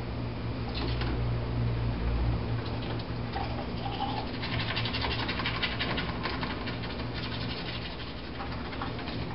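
Toothbrush scrubbing teeth, rapid brushing strokes that are loudest about halfway through, over a steady low hum.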